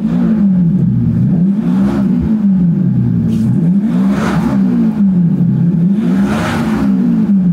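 Maserati diesel sedan revved repeatedly while parked, its engine note voiced through an aftermarket app-controlled active sound resonator that gives the diesel a full petrol-like sound. The pitch swells up and falls back four times, about every two seconds, with a rougher rush at the top of the last two.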